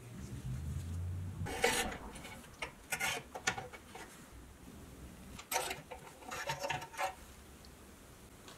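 Metal clinks, knocks and scrapes from a pressed-steel toy truck body and its wheel axles being handled and worked with a metal rod, in several short spells.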